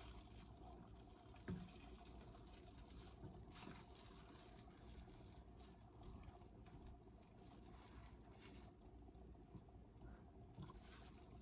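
Near silence: room tone with a few faint, soft rustles.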